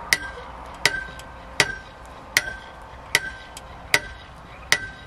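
A metal stake is hammered into the ground with seven even blows, about one every three-quarters of a second. Each blow is followed by a short metallic ring.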